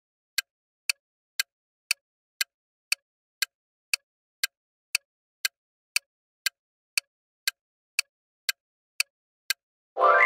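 Clock-ticking sound effect of a quiz countdown timer: sharp ticks about twice a second. Near the end the ticking stops and a short chime with several tones sounds, marking the reveal of the answer.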